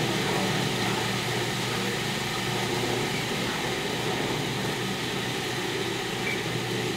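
Electric food processor running steadily, its blade chopping dried coconut, walnuts and medjool dates into crumbs that are just starting to stick together, with an even motor hum under the grinding.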